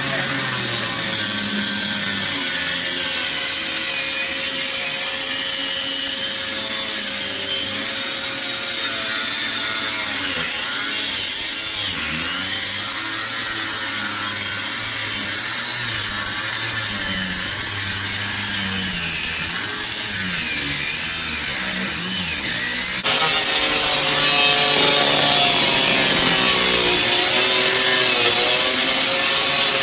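Power saw running and cutting through a wall along marked lines to widen the opening for a door. It gets suddenly louder and brighter about three-quarters of the way through.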